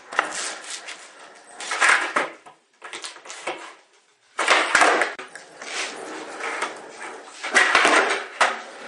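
Skateboard rolling on a hard basement floor, with sharp clacks of the board's tail popping and the board landing, in several loud spells of clatter.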